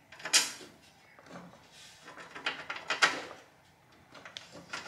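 Hands handling wiring and plastic parts at the front of the car: a short clatter just after the start, another about three seconds in, and lighter rustling and clicking in between.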